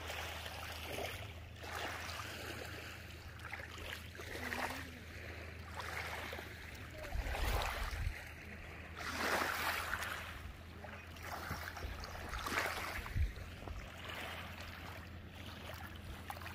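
Small waves lapping against a gravel lakeshore, a wash every second or two, over a steady low hum.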